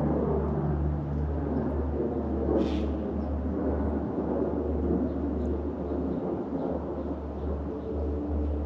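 Steady rumble of passing road traffic, one vehicle's pitch dropping as it goes by near the start. A brief high sound cuts in about a third of the way through.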